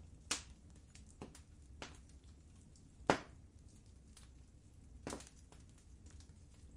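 Wood fire crackling in a fireplace: irregular pops and snaps of burning logs, the loudest about three seconds in, over a low steady rumble.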